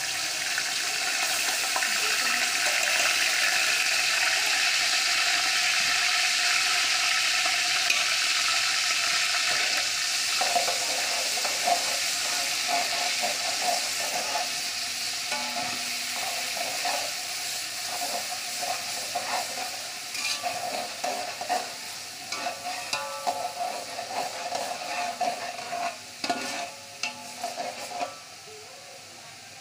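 Ginger-garlic paste sizzling in hot oil with whole spices in a large steel pot while a metal spoon stirs and scrapes the bottom. The sizzle is loudest for the first several seconds and then dies down, leaving the spoon's scrapes and taps plainer, before it quietens shortly before the end.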